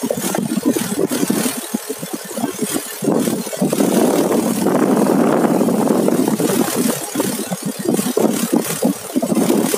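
Motorcycle riding along a road, its engine running under a rushing noise that gets louder about three seconds in.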